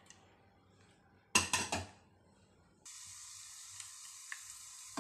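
A few quick clinks and knocks against a frying pan, then, from a little past halfway, oil sizzling steadily as dried vathal berries fry in it, with a few faint ticks.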